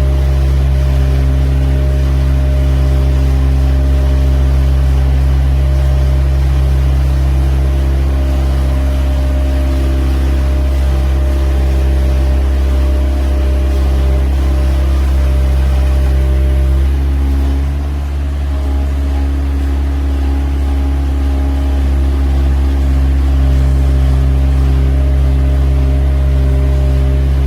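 A poultry-farm machine running with a steady low hum, its pitch and level holding constant, dipping briefly about eighteen seconds in before returning to full strength.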